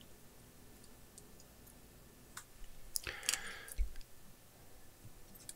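A few sharp clicks of small wire cutters snipping soldered leads, about two and a half to three and a half seconds in, followed by a dull knock.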